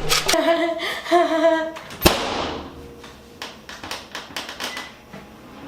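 Two short wavering tones, then a single loud bang about two seconds in that rings out and fades over about a second, followed by scattered light taps.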